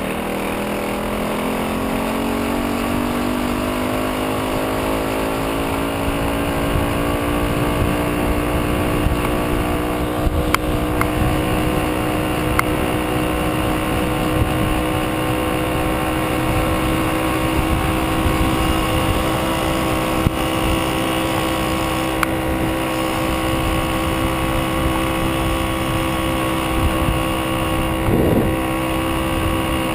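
VeloSoleX moped's small two-stroke engine running, its pitch rising over the first few seconds as it picks up speed and then holding steady at cruising speed. Wind rumble on the microphone runs underneath.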